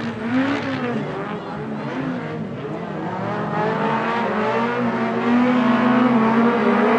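Several 1660-class modified stockcars racing in a pack on a dirt oval, their engines revving hard at high pitch. The sound grows louder as the pack comes closer.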